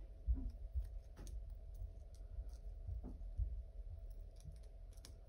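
Hands handling a small soft keychain and its little chain: scattered light clicks and ticks with several soft bumps.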